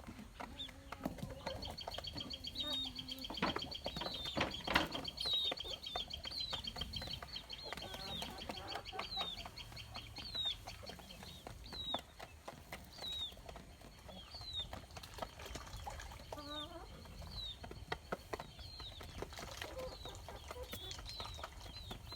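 Domestic chickens clucking low, with many short, high peeping calls scattered throughout and a rapid high trill over the first ten seconds or so.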